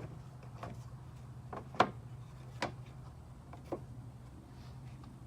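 Sharp clicks and knocks, about five of them, the loudest just under two seconds in, as a seed hopper is handled and fitted onto a John Deere 7300 planter row unit. A steady low hum runs underneath.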